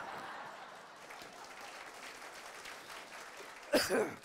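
Audience applause: many hands clapping in a dense patter that slowly fades. Near the end a man's voice breaks in loudly for a moment.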